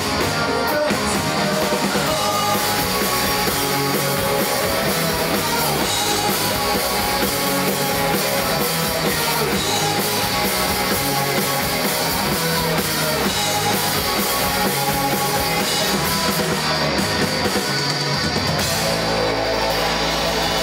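Live rock band playing loud and steady, with electric guitar, bass guitar and a Yamaha drum kit. Near the end the sound settles into long held notes.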